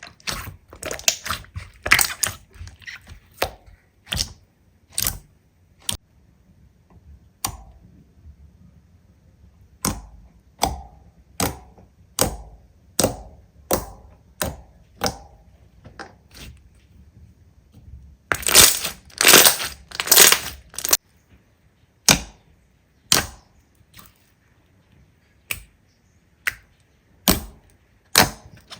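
Slime being worked by hand, giving sharp sticky pops and crackles: single pops roughly a second apart, with denser bursts of crackling at the start and again about two-thirds of the way through.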